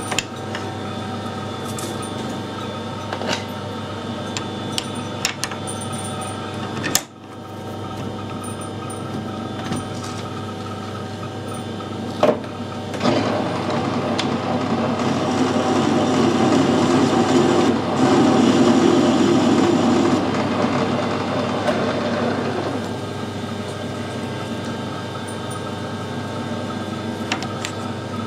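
Metal lathe running with a steady gear whine and scattered clicks, machining the end of a silver-steel bar. About halfway through, a louder, rougher cutting sound rises for several seconds and then eases off.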